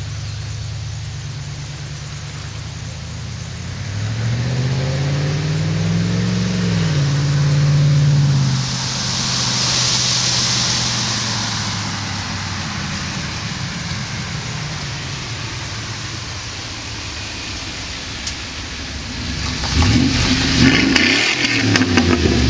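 1999 Ford F-150 pickup's engine revving hard during a burnout. The revs climb about four seconds in and hold, with the rush of spinning tyres, then swing rapidly up and down several times near the end.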